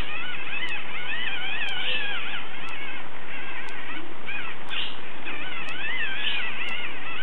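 Liver and onions sizzling steadily in butter in a pan. A high, wavering, warbling tone rides over the sizzle for the first few seconds and again near the end.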